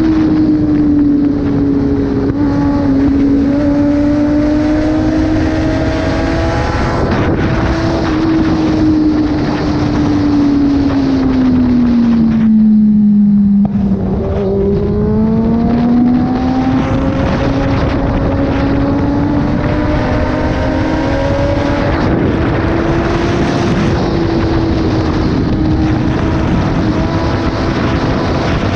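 Kawasaki ZX-10R's inline-four engine running through an SC-Project exhaust at a steady ride, with heavy wind rush. The engine note sinks slowly to its lowest about halfway, thins out for a moment, then climbs back up and levels off.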